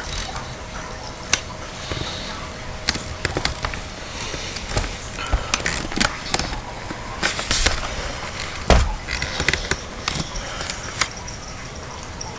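Irregular sharp knocks and clatters on a hardwood floor, the loudest about nine seconds in, as cats are fed from bowls set on the floor.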